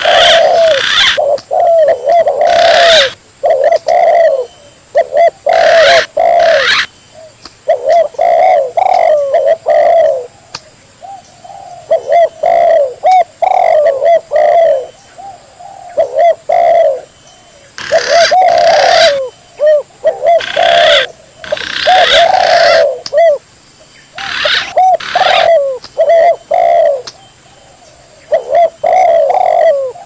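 Spotted dove (tekukur) coos and green pigeon (punai) whistles calling back and forth, a recorded bird-lure track. The calls come as loud, repeated phrases with short gaps between them.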